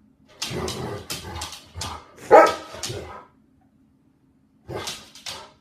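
A dog barking: a run of about five barks, then a pause and two more barks near the end.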